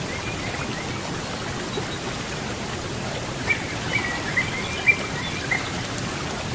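Steady rush of flowing river water, with a bird giving a quick run of about five short, high chirps in the second half.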